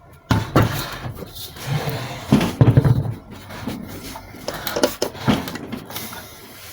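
Handling noise: a run of irregular knocks and clunks, as of a hard object being moved about and set down on a surface, loudest about two and a half seconds in.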